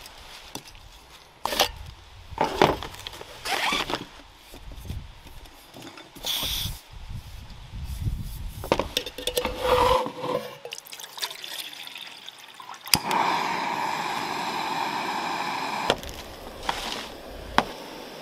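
Clatter and knocks of a canister camping stove being put together: the burner screwed onto the gas canister and the cooking cup set on top, with a short pour of water. About two-thirds of the way through, a sharp click is followed by the steady hiss of the lit gas burner, which drops to a quieter hiss for the last couple of seconds.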